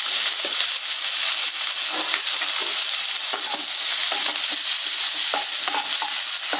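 Chopped onions, green chillies and curry leaves sizzling in hot oil in a nonstick kadai while being stirred with a spatula: a steady high hiss with short, irregular scraping strokes of the spatula through it.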